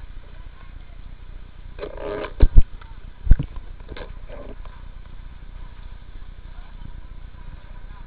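Three sharp, close knocks about two and a half to three and a half seconds in, the loudest sounds here, over a steady low rumble. A brief raised voice comes just before them and again shortly after.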